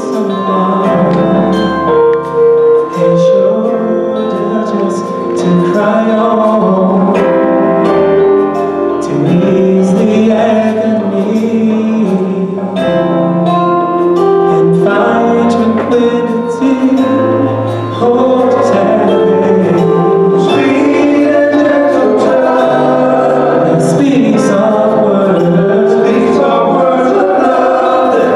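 Gospel song: a male vocal group singing into microphones over instrumental accompaniment with a steady bass line.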